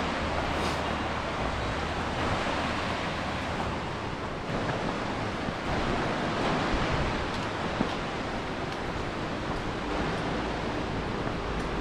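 Steady rush of creek water: an even, unbroken hiss of fast-flowing water.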